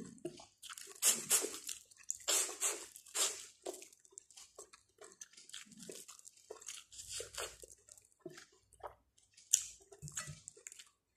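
Close-up biting and chewing of boiled corn on the cob: irregular short crunches and chewing noises, loudest and busiest in the first few seconds, then sparser and fainter.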